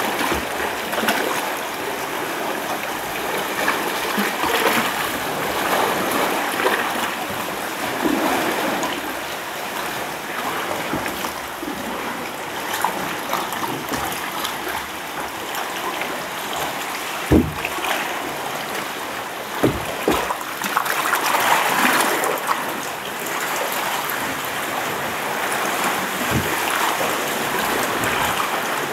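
Sea water sloshing and splashing around a small rowboat, with a few dull knocks in the second half.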